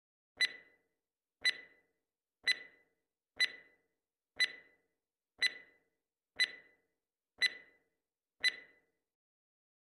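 Countdown timer sound effect: nine sharp clock ticks, one a second, each with a short ringing tail, then it stops.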